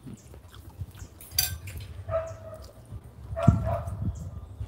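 Two short, pitched animal calls, about two seconds in and again about three and a half seconds in, over low rumbling noise, with a sharp click about a second and a half in.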